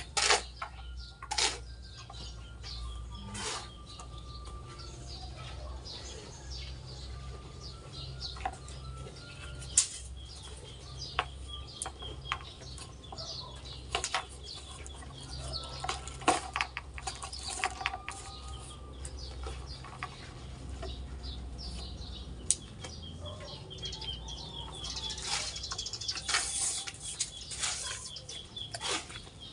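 Irregular scrapes and knocks of a shovel working a sand pile, with birds chirping and a low steady hum underneath.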